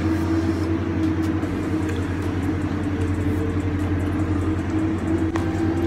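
Steady low mechanical hum with a constant higher tone above it, over an even hiss. A light click sounds near the end.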